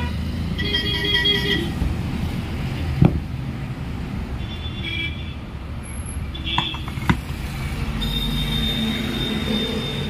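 Road traffic rumbling with several short vehicle horn toots. Two sharp knocks, about three and seven seconds in, come from the ceiling fan's metal stator housing being handled on a steel pipe stand on the workbench.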